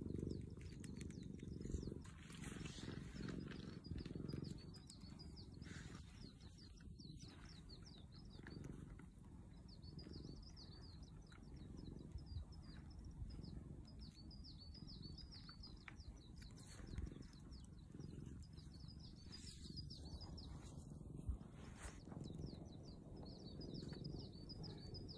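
Domestic cat purring while being stroked: a low, steady, pulsing rumble, with faint repeated high chirps in the background.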